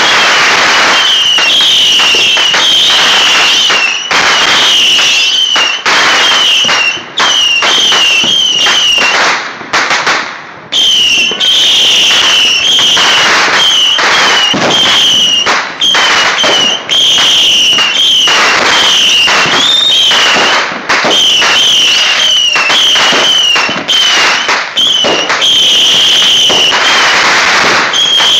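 Fireworks going off in quick succession: dense bangs and crackling, with a high wavering whistle sounding again and again over them. There are brief lulls about 4, 10 and 16 seconds in.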